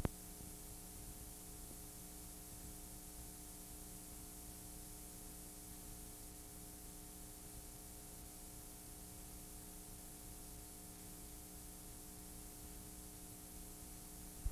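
Faint steady hiss with a low hum from a blank stretch of videotape playing back, with a small click at the start and another at the end.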